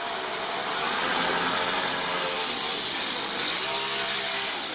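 Toyan FS-S100 single-cylinder four-stroke nitro engine running in a radio-controlled car, its pitch dipping and rising again as the throttle is worked.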